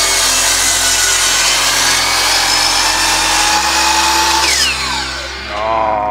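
DeWalt sliding compound miter saw running and crosscutting a glued-up hardwood cutting board blank to square its edge. About four and a half seconds in the motor is released and the blade spins down with a falling whine.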